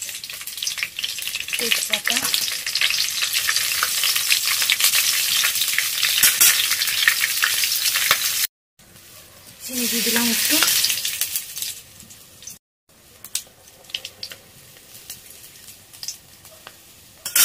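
Mustard oil sizzling and spitting in a kadai with whole spices frying in it. The hiss cuts off abruptly about eight seconds in, returns briefly, then drops to a quieter sizzle with a few light clicks.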